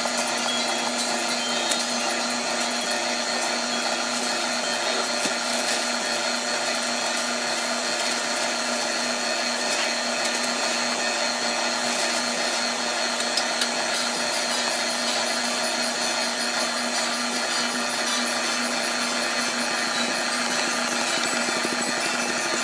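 KitchenAid stand mixer running at a steady speed, its motor and gears whirring evenly as the dough hook kneads bread dough in the steel bowl.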